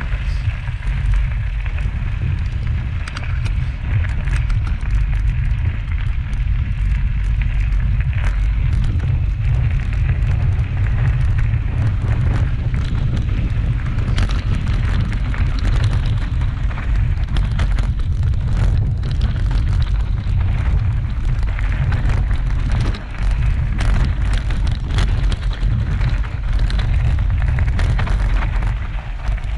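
Wind buffeting the microphone of a camera mounted on a mountain bike as it rolls fast down a rocky dirt trail, a heavy steady rumble with frequent rattles and knocks from the bike and tyres going over bumps and stones.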